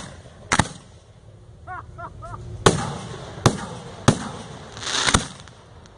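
1.3G display firework shells bursting overhead: five sharp bangs spread over about six seconds, the last preceded by a brief hiss.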